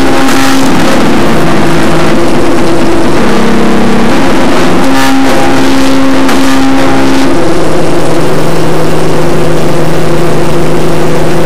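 Stepper motors of a homemade CNC hot-wire foam cutter humming as the wire traces a small hole through styrofoam, the steady tone jumping to a new pitch every second or two as the axes change direction and speed. A loud, distorted hiss lies under it throughout.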